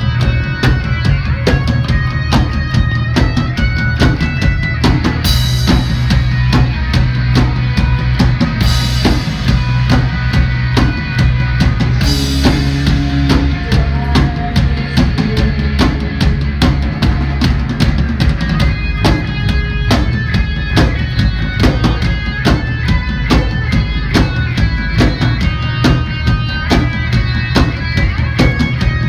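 Gothic rock band playing live: drum kit keeping a steady beat under bass guitar and electric guitar, with cymbal crashes about five, nine and twelve seconds in.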